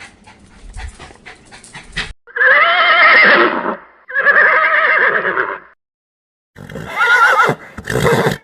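Horse neighing: after about two seconds of quick knocks, two long, loud, quavering whinnies follow one after the other, and a third, shorter neigh comes near the end.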